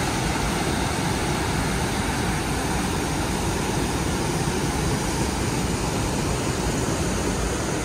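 Swollen river running in flood after a cloudburst: a steady, even rush of water.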